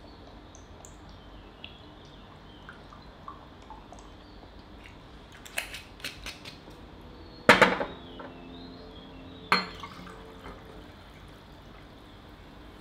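Whisky poured from a bottle into a glass tumbler, with faint dripping and trickling. Small clinks follow, then two sharp glass knocks on a glass-topped table, a loud one with brief ringing about halfway through and a lighter one two seconds later. A quieter pour from a can into the glass comes near the end.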